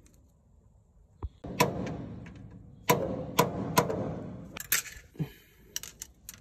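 Steel tool knocking against a metal gearbox housing: a ringing metal clank about a second and a half in, then three more in quick succession a second later, each ringing out, followed by lighter metallic clicks and taps.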